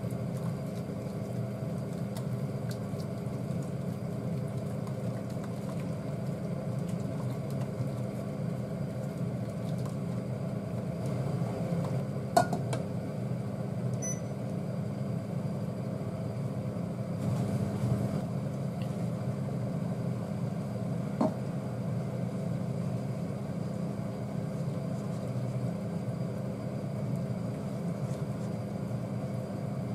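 Steady hum of an induction cooktop running under a saucepan of simmering curry. A sharp clink from the pan and lid about twelve seconds in, and a light knock around twenty-one seconds.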